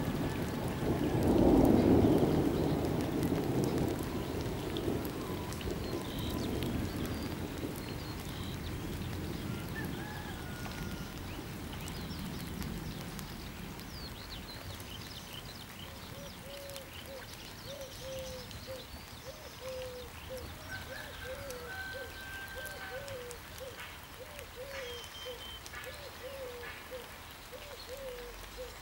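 Thunder rumbling: a loud roll peaking about two seconds in, then fading away over the following seconds. In the quieter second half, a low call repeats about one and a half times a second among scattered bird chirps.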